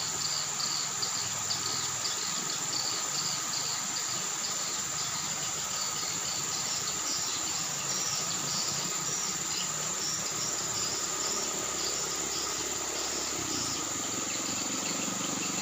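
Chorus of insects such as crickets: a steady high-pitched trill with rows of quick repeated chirps over it, unbroken throughout.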